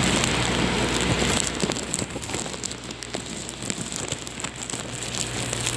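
Heavy wind-driven rain falling and splattering in a storm, loudest in the first second and a half, then easing to a lighter patter of drops.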